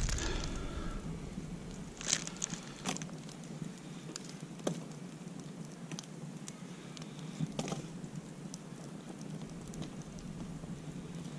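Wood fire crackling: a few sharp, scattered pops over a faint steady hiss.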